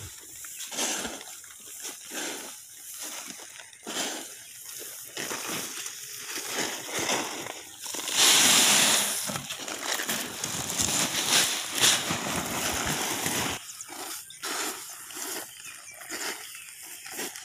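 Threshed unmilled rice grain poured from a pail into a woven plastic sack: a loud, even rushing hiss that starts about eight seconds in and lasts some five seconds. Before and after it come short rustles and scrapes of grain being scooped and the sack being handled.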